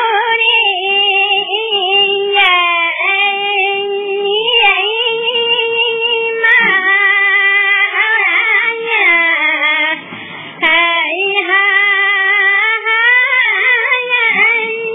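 A high female voice singing a long, ornamented melody with wavering, held notes, breaking off briefly about ten seconds in.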